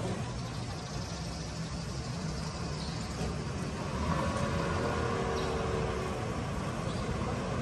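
Street traffic: a motor vehicle's engine running close by over a steady low rumble, growing louder about four seconds in.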